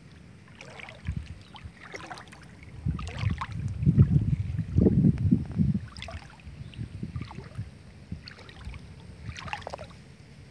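Leaves and stems rustling and crackling in short spells as a handheld camera pushes through dense brush and grass. A low rumble on the microphone is loudest about four to six seconds in.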